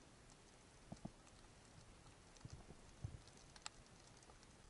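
Near silence underwater: faint scattered clicks and a few soft low knocks, about a second in and again around three seconds in.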